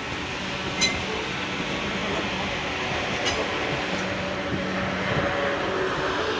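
Class 444 Siemens Desiro electric multiple unit running into the terminus platform: a steady hum of traction equipment over wheel and station rumble, with a sharp click about a second in and another about three seconds in.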